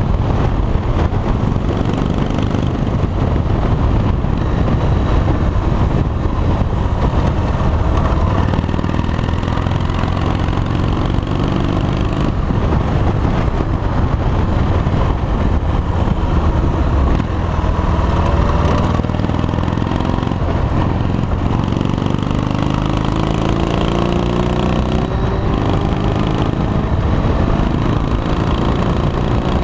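Harley-Davidson Sportster's V-twin engine running while riding, with wind noise over the microphone. The engine note climbs several times as the bike accelerates, most clearly in the second half.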